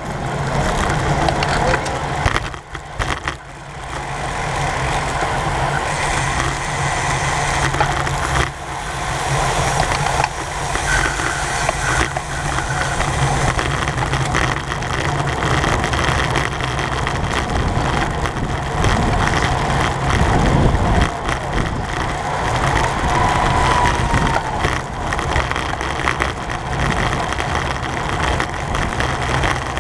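Wind rushing over the microphone and tyre and road noise from a racing bicycle riding fast in a pack: a steady, loud low rumble that dips briefly two to three seconds in.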